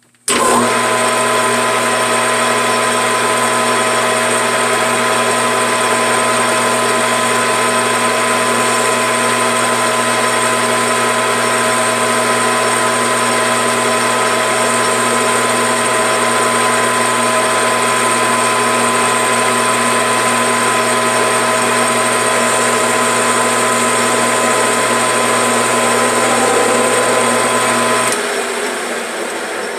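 Metal lathe starting abruptly and running steadily with a whine, its spindle turning a rifle barrel while a radius cutter is fed in to cut a thread relief groove. About 28 seconds in the motor is switched off and the lathe runs down.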